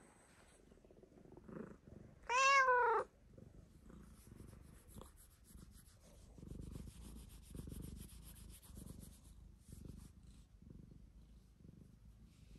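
Domestic cat purring in a soft, rhythmic rumble as it is stroked, with one short meow about two seconds in.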